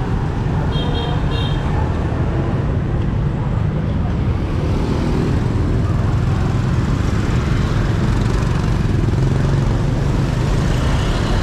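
Busy street ambience: steady motorbike and car traffic with indistinct voices around, and a few short high beeps about a second in.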